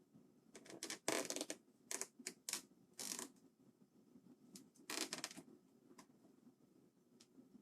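Mechanical keyboard parts being handled: short bursts of scraping, rattling and clicking as the cable and board are worked into place. The bursts come in a cluster over the first few seconds and again about five seconds in, with faint single clicks between.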